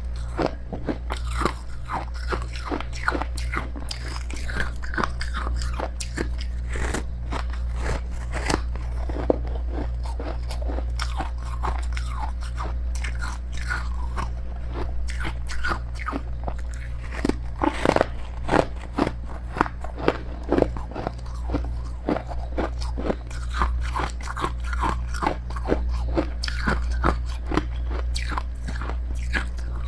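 Close-up biting and chewing of powdery freezer frost: dense, irregular crunching bites that continue without a break, over a steady low hum.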